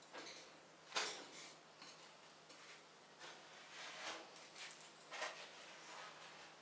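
Plastic scraper scraping across a frozen steel cold plate, rolling up a thin sheet of frozen ice cream in short, irregular strokes; the sharpest scrape comes about a second in.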